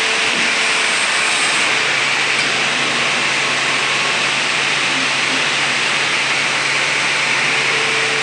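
Sheet-metal seam closing machine running steadily: an even motor hum under a constant hiss, with no knocks or changes.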